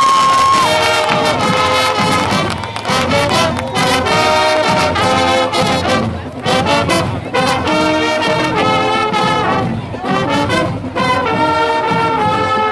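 Marching band brass section playing loudly, short punchy phrases repeated in a steady rhythm. A held high note cuts off just after the start.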